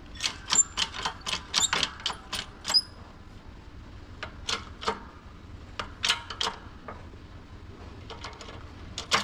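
Sharp metal clicks and clinks from handling parts at a shop press as a plate is set under the pump: a quick run of about a dozen in the first three seconds, some ringing briefly, then scattered knocks, with a louder knock near the end.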